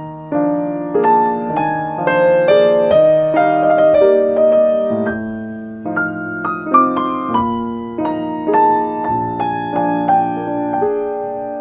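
Soft solo piano music, melody and chords played at an easy pace.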